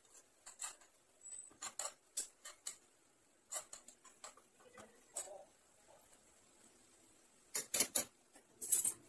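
A utensil scraping and tapping against a nonstick frying pan as cooked rice is scooped out, in short irregular bursts of clicks and scrapes.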